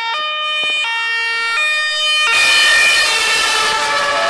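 German two-tone emergency siren (Martinshorn) on a fire-brigade van, alternating between a high and a low note about every three-quarters of a second. About two seconds in it gets louder and rougher as the van passes close, with engine and road noise joining in.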